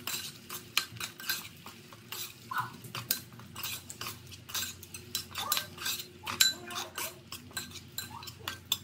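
Metal ladle stirring thick fish curry in a pot, clinking and scraping against the pot in many quick, irregular strokes.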